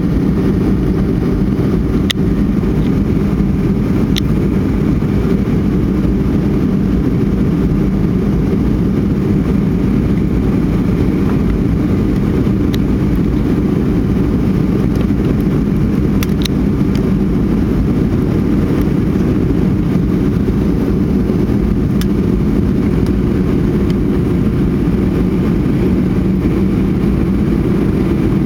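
Steady roar of an airliner's cabin on approach: jet engine and airflow noise, deep and unchanging, with a few faint clicks from the cabin.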